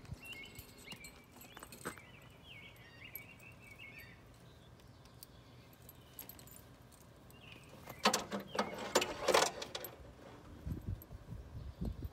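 Metal bit and bridle hardware jingling and clinking as the bridle is put on a horse, with a burst of clinks at about eight to nine and a half seconds in. A few low thumps follow near the end.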